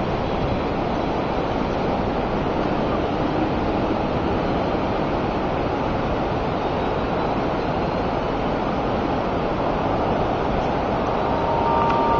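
Steady rush of flowing river water, an even hiss with no breaks. A faint steady tone sounds briefly near the end.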